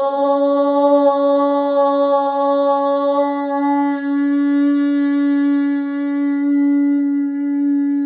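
A woman's voice chanting one long, steady Om on the out-breath. About four seconds in, the open 'O' gives way to a closed, humming 'm'.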